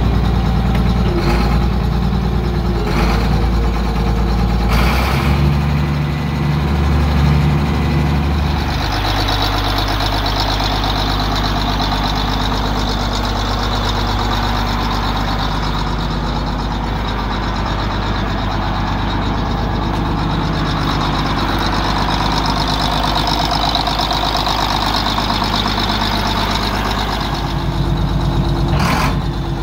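Case 2470 tractor's six-cylinder diesel engine running steadily while the tractor is driven and steered. The engine note shifts about nine seconds in, and there are a few sharp clanks in the first five seconds and one near the end.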